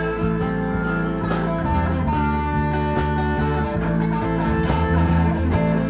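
Blues-rock band playing an instrumental passage: a lead electric guitar holds and bends long notes over bass and a steady drum beat with cymbal hits about twice a second.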